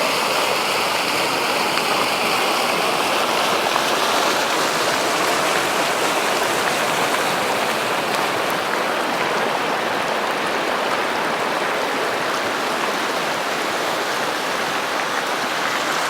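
Floodwater rushing along a normally dry riverbed in flash flood, a steady loud rush.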